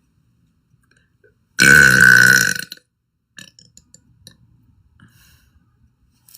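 A girl burps once, loud and long, for a little over a second. It starts abruptly about one and a half seconds in.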